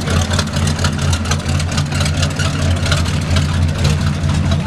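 A 1940s Ford pickup's engine running at low speed as the truck rolls slowly by, a steady low rumble.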